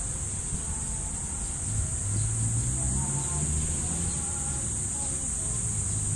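Steady high-pitched insect drone, with a low steady hum that grows louder about two seconds in.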